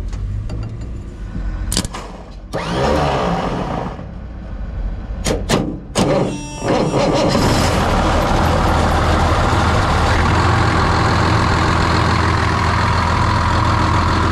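Case IH Steiger tractor's Cummins M11 diesel being started by shorting across the starter solenoid by hand, a bypass forced by a fault in its electrics. There are several sharp clicks, and the starter cranks briefly about two and a half seconds in. It cranks again about six seconds in, the engine catches and then runs steadily at idle.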